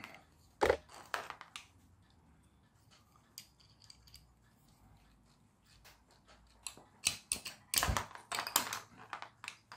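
Pliers and small plastic toy gearbox parts clicking and clacking as the axles are forced out. There are a few sharp clicks near the start, a quiet stretch, then a run of knocks and clacks in the last few seconds.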